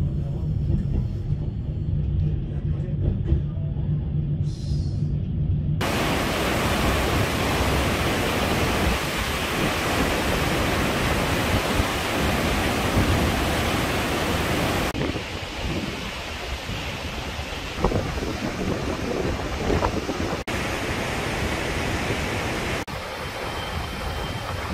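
Mountain river rapids and waterfall rushing steadily. The rushing starts abruptly about six seconds in, after a low steady rumble, and changes loudness at abrupt cuts near the middle and the end.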